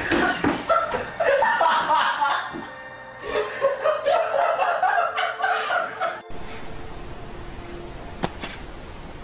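A person laughing in bursts for about six seconds, then an abrupt cut to a steady background hiss with a single sharp tap near the end.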